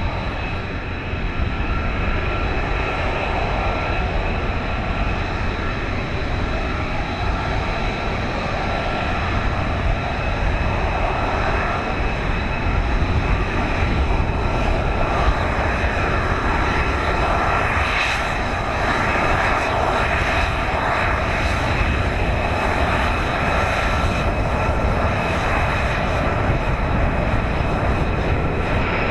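Lockheed Martin F-35A Lightning II's Pratt & Whitney F135 turbofan running steadily at taxi power: a loud, even jet noise with a high whine held on a few steady tones.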